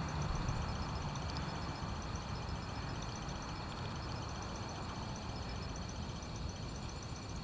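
Outdoor background sound: a steady low rumble with faint, rapid high-pitched chirping repeating throughout.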